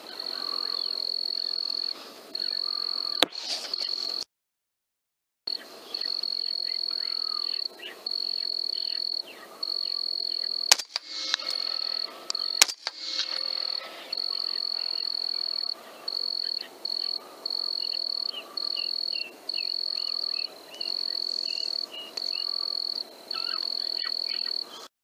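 A high, steady insect trill, broken by short pauses. A few sharp, loud clicks come in the first half. The sound drops out completely for about a second early on.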